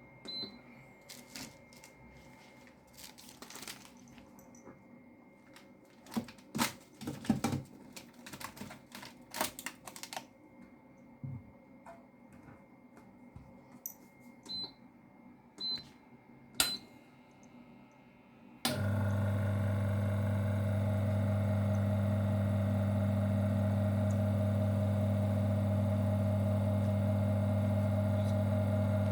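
Short keypad beeps and clicks from a digital vacuum leak test apparatus. About two-thirds of the way through, its vacuum pump starts suddenly and runs with a steady low hum, pulling vacuum on the test chamber.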